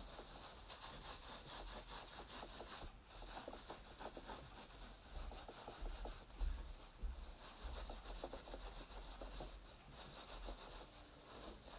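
Hands rubbing wet, soapy wool flat through a felting mesh: a faint, continuous swishing rub of quick back-and-forth strokes. This is the early wet-felting stage, rubbing the fibres until they start to hold together.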